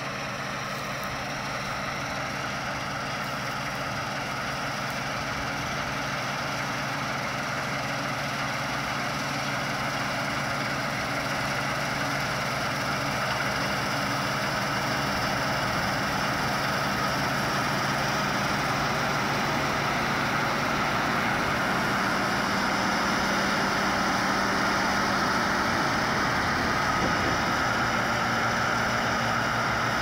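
New Holland TC56 combine harvester cutting and threshing rye: its engine and threshing machinery run steadily, growing gradually louder as the combine draws closer.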